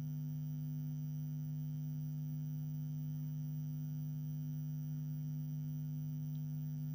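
Steady low electrical mains hum with a ladder of fainter overtones, unchanging throughout.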